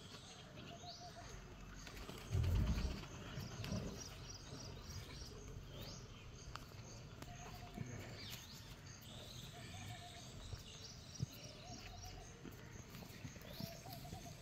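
Background birds chirping with many short high calls, and a lower call repeating every few seconds. A brief low rumble about two and a half seconds in.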